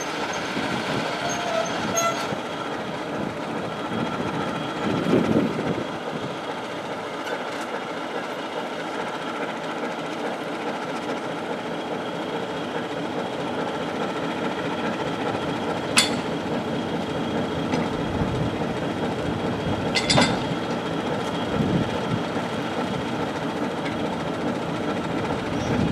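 TEM2 shunting diesel locomotive's six-cylinder diesel engine running steadily as the locomotive creeps along the track. Two sharp metallic clanks, about four seconds apart, come after the middle.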